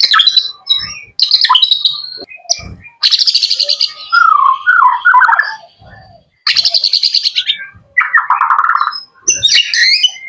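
Young male white-rumped shama (murai batu) in full, energetic song: loud phrases about a second long, fast buzzy rattling trills alternating with lower warbled whistles, with short pauses between phrases.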